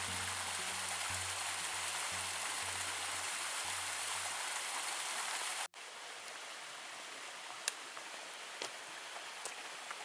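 Running water, a steady rushing hiss, which cuts off about halfway through to a quieter flow of water with a few faint clicks.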